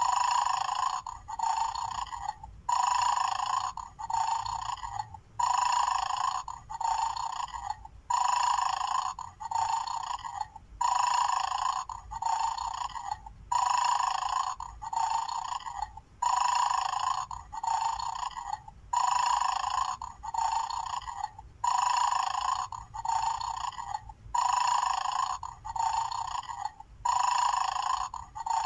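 Mad Dog bone-game toy playing its recorded dog snoring sound through its small built-in speaker: thin and tinny, repeating as a loop about every two and a half to three seconds, the toy's 'sleeping' mode while its bones sit untouched.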